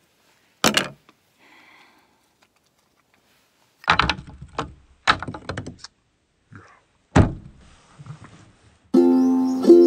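Thin plywood cut-off pieces dropping and clattering onto a hard surface: one knock about a second in, a cluster of sharp knocks around four to six seconds in, and one more near seven seconds. Ukulele music starts near the end.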